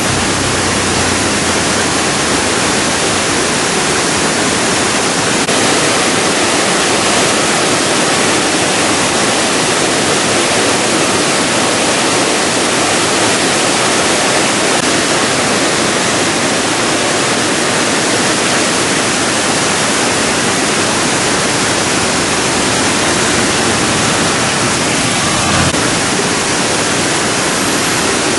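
River water rushing, a loud, steady, unbroken noise.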